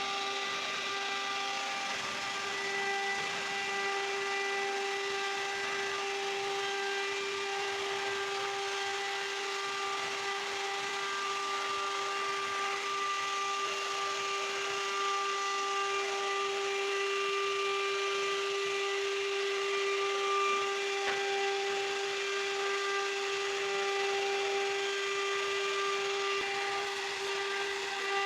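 CNC router spindle whining at a steady, constant pitch while its bit cuts through wood, with a continuous hiss of cutting underneath.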